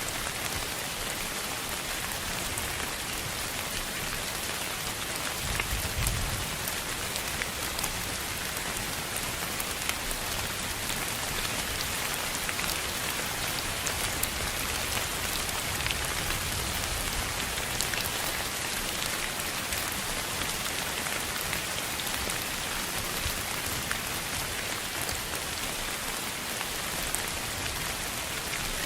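Steady rain: a continuous even hiss, strongest in the upper range, with scattered faint drop ticks and a brief low rumble about six seconds in.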